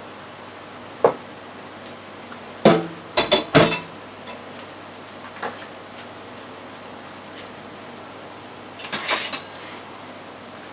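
A spoon knocking and clinking against a cooking pot as egg noodles are added and stirred into the chicken and tomatoes: single knocks, a quick run of four or five around three seconds in, and a short burst near the end.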